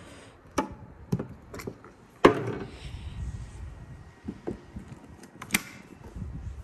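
Electric-car charging plug being handled and pushed into a VW ID.4's charge port: a series of sharp plastic clicks and knocks, the loudest about two seconds in.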